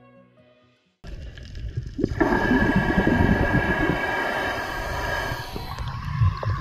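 Soft background music fading out, then after a cut about a second in, bubbling and sloshing water around an action camera at the sea surface, with a steady high whine over it for a few seconds.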